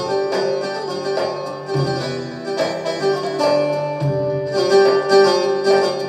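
Instrumental interlude of a Turkish folk song played by a small band with keyboard: a high melody line over a low bass note that comes about every two seconds.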